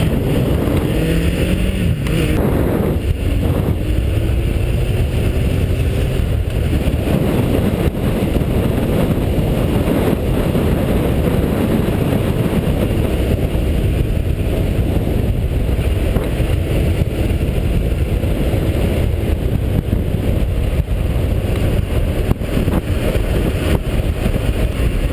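Motorcycle engine running while riding, under a loud steady rumble of wind and road noise. The engine note climbs in the first couple of seconds.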